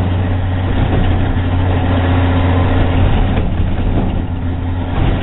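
Truck engine running steadily while the truck drives slowly, heard from inside the cab as a constant low drone.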